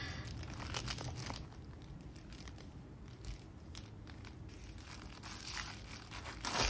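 Plastic wrapping crinkling faintly as it is peeled off a canvas board, with louder crackling near the end.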